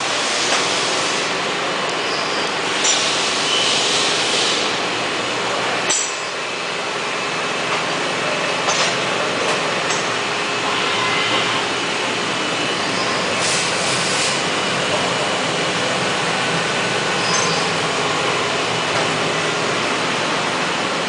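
A Haas VF-2 vertical machining center running: a steady mechanical whir with faint steady tones, broken by several short hissing bursts and a sharp click about six seconds in.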